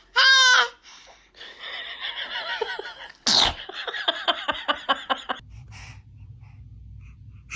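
Baby sneezing: a short, high, wavering squeal at the start, then a sharp sneeze a little over three seconds in, followed by a quick string of short breathy sounds.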